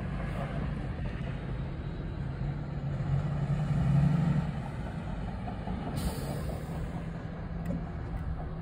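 Steady road and engine noise of a moving car heard from inside the cabin, swelling louder about three to four seconds in. A brief click near the end.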